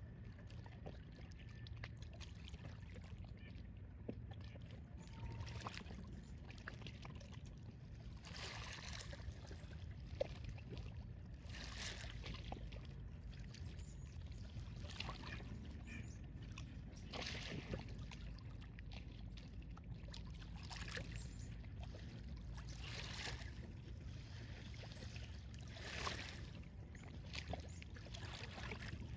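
Faint water sloshing and lapping, with a soft swish every few seconds over a steady low rumble.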